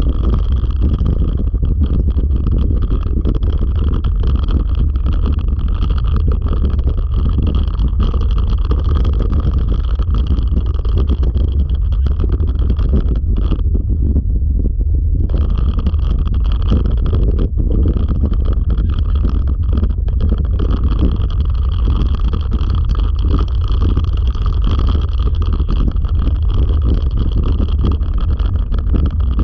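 Continuous rumble of a wheeled dryland dog-sled rig rolling along a trail, with heavy wind buffeting on the microphone. The higher hiss drops out briefly around the middle.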